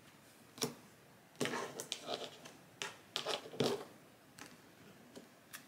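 Oracle cards being handled: several light clicks and short rustles of card stock as a card is set down on the deck.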